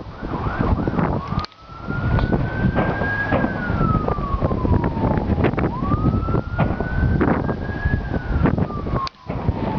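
An emergency vehicle siren wailing in slow cycles: each rises over a second or two and then slowly falls, repeating about every four and a half seconds. Beneath it run a dense low rumble and many short sharp cracks.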